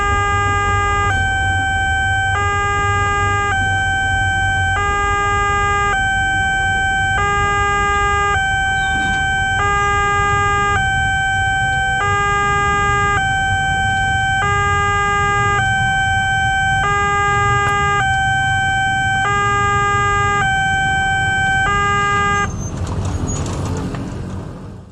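Railway level-crossing warning alarm sounding from the horn loudspeaker on the crossing signal pole: two tones alternating steadily, about one change a second, that cut off about 22 seconds in as the crossing clears. In the first few seconds there is a low rumble from the passing KRL electric commuter train.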